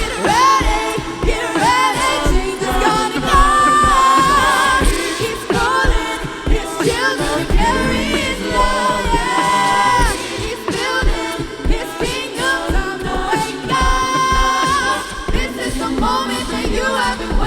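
Music: several voices singing a sustained, gliding melodic passage over a steady beat.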